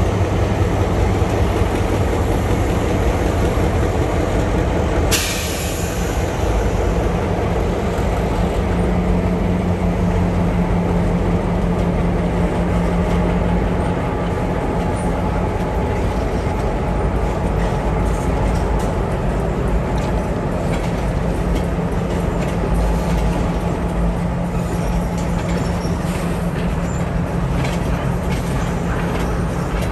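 A train rolling past with a steady low rumble, a short hiss about five seconds in, and faint clicking from the wheels later on.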